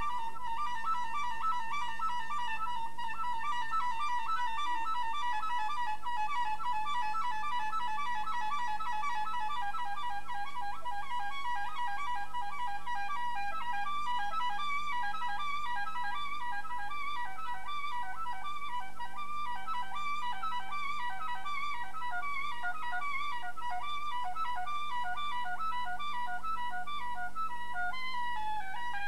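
Saxophones and trumpet playing: a high horn line of fast, short repeated notes that grows wider and more jagged, over steady held low tones, with a falling slide near the end.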